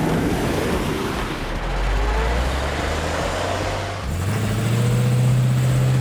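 Engine sound of toy heavy machinery: a steady, low diesel-like drone whose pitch steps up about four seconds in, over a noisy rumble.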